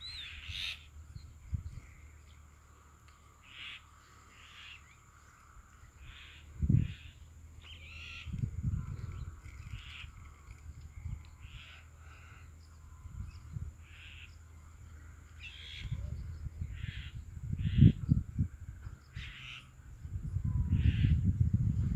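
Birds calling over and over, short calls about once or twice a second. Bouts of low rumbling on the microphone come in about 7 s in and again, louder, near the end.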